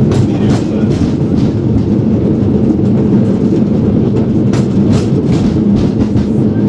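San Francisco cable car running on its track: a steady loud rumble with a held low hum, broken by sharp clacks, a few near the start and another cluster about four and a half to five and a half seconds in.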